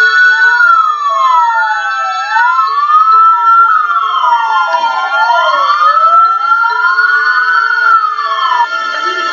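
Several police car sirens wailing at once, their pitches sweeping slowly up and down and crossing over one another, with steady music underneath.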